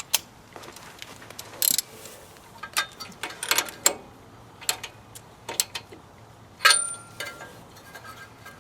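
Metal hand tools clicking and clanking irregularly while working on a riding mower's engine, with one louder clank about two thirds of the way through that rings briefly.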